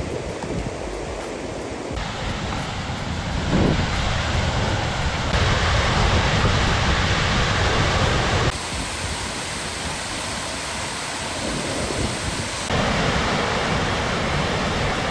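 Rushing floodwater of a creek and waterfalls, a steady roar with wind on the microphone, changing abruptly several times as the shots change.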